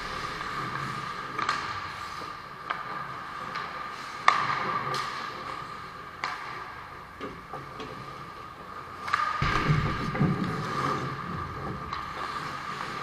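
Ice hockey play on a rink: skates scraping the ice and scattered sharp clacks of sticks and puck, over a steady hum. About nine seconds in a louder rough scraping rush lasts for a second or two.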